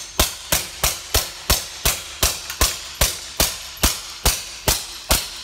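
SilencerCo Maxim 9 integrally suppressed 9mm pistol firing a fast, even string of suppressed shots, about fourteen at roughly two and a half a second. The string stops just before the end as the last magazine runs dry.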